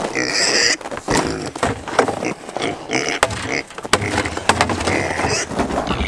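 Pigs squealing a few times, the loudest squeal right at the start, with boots crunching in packed snow.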